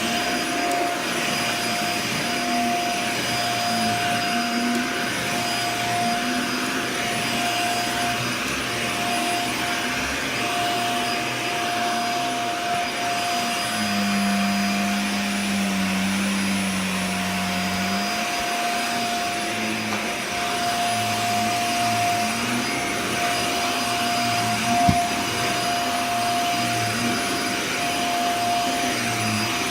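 Dyson Small Ball Multifloor upright vacuum cleaner running steadily: rushing air with a constant high motor whine. For about four seconds midway a deeper hum comes in, and there is a single knock about 25 seconds in.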